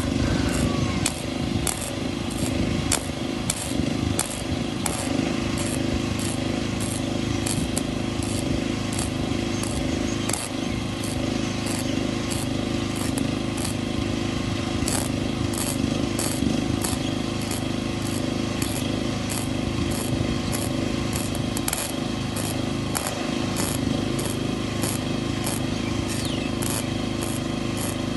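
Electric arc welding: a continuous crackling sizzle with a sharp tick about twice a second, over a steady low hum.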